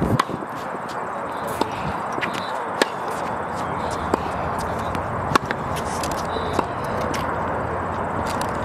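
Tennis balls struck by racquets in a baseline practice rally: sharp pops about every second and a quarter over a steady background hiss.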